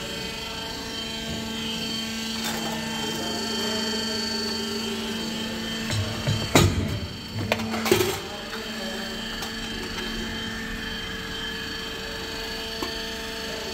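Hydraulic die-cutting press running with a steady hum, then a cluster of sharp metallic clanks about halfway through as the die set closes and cuts and stamps a sheet metal plate.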